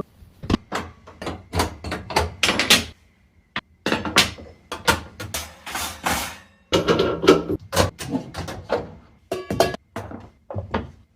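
Kitchen range hood parts being handled during cleaning: an irregular run of knocks, thunks and scrapes, some sharp and some drawn out.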